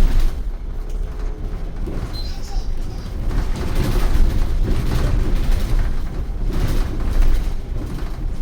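City bus running, its engine and road noise heard from inside the cabin as a low rumble that swells and eases as it drives.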